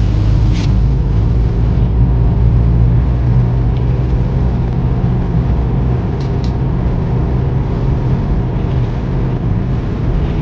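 Car driving on a highway, heard from inside the cabin: a steady low road and engine rumble with an even hiss of tyre noise.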